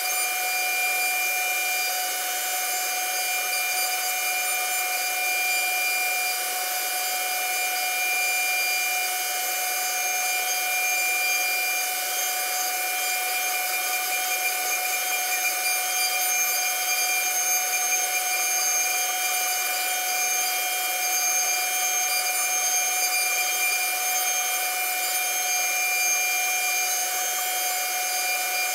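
CNC router spindle running with a steady high whine at several pitches while its bit carves grooves into a wooden board, over an even cutting hiss.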